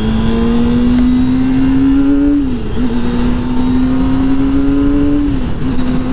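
Kawasaki Ninja ZX-25R's inline-four engine through a Yoshimura R-77 exhaust, pulling under way with its pitch climbing slowly. It shifts up twice, the pitch dropping sharply and picking up again lower each time, then holds steady.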